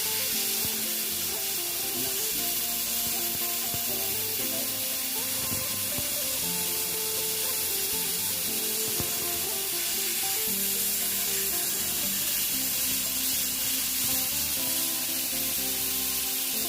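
Steady hissing from the pot of cooking food, with background music of held notes playing over it.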